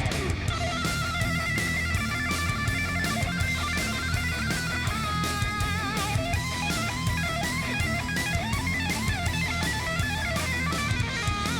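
Background rock music with distorted electric guitar lead lines over a steady drum beat.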